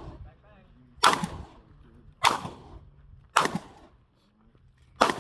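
Handgun shots fired one at a time during a walking drill: four shots about a second apart, with a longer pause before the last, each followed by a brief echo.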